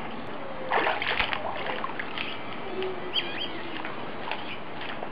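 Water splashing as a swimmer moves through a pool, a steady wash with a few sharper splashes about a second in. Two short high chirps come a little after three seconds in.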